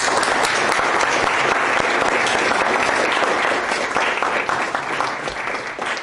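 Audience applauding, many hands clapping together at a steady level, then thinning out slightly near the end.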